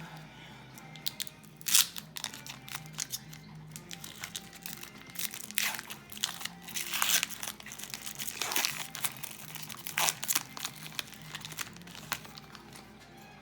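Trading-card pack wrapper crinkling and tearing as a pack is ripped open and handled, with many sharp crackles in the middle stretch. Background music plays throughout.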